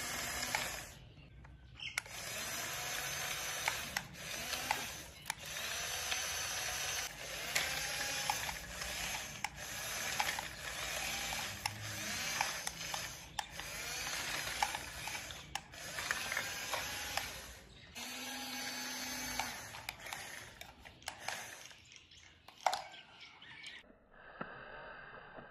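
Small electric gear motors of a toy remote-control excavator whirring in runs of one to two seconds with short pauses, the pitch gliding up and down as the arm and tracks move.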